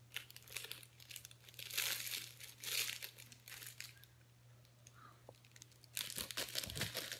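Crinkly rustling of things being handled close to the microphone, in several short bursts with quieter gaps between.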